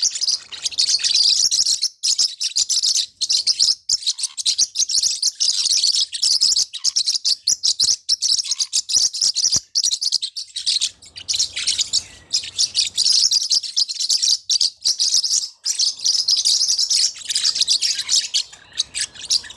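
Forpus parrotlets chattering to each other in rapid, high-pitched chirps, nearly continuous with only brief gaps.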